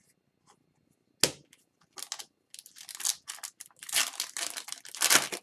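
Wrapper of a 2021-22 Upper Deck Series 2 hockey card pack being torn open and crinkled by hand, with a sharp snap about a second in followed by irregular crackling and tearing that grows louder toward the end.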